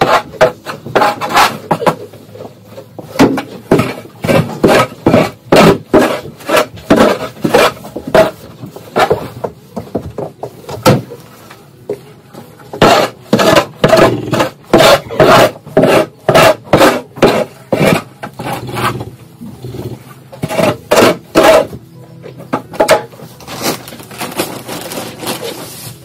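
Scoop shovel scraping and scooping across a concrete stall floor while mucking out bedding and manure: a quick, irregular run of scrapes and knocks.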